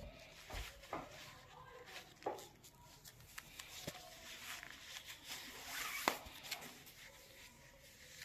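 Faint rustling and brushing of a necktie's fabric being pulled and knotted close to the microphone, with scattered soft clicks of hands handling the cloth.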